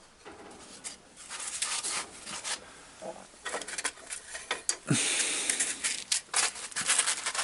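Handling noises on a workbench: rustling, scraping and light clicks of sandpaper and small motor parts being picked up and moved, growing busier and louder about five seconds in.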